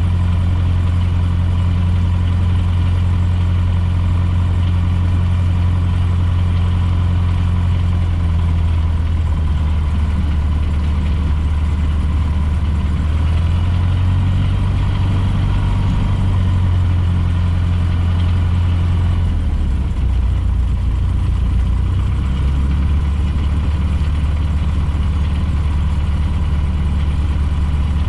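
Cessna 150J's Continental O-200 four-cylinder engine and propeller running at low taxi power, heard inside the cabin: a steady low drone whose pitch shifts slightly up and down a few times.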